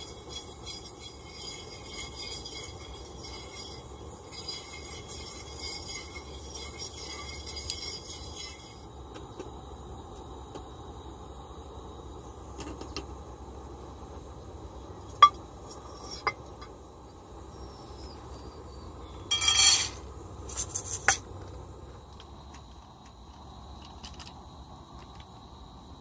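Roasted coffee beans rattling and being stirred in a metal pan for the first nine seconds or so, then scattered clinks of metal cookware and one short clattering rush about two-thirds of the way through. A steady low rush from the camp stove burner runs underneath.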